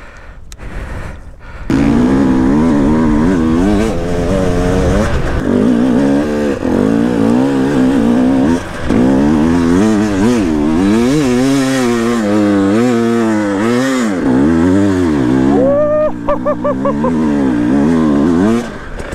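Two-stroke enduro dirt bike engine revving up and down repeatedly under throttle. It starts loud about two seconds in and drops away near the end.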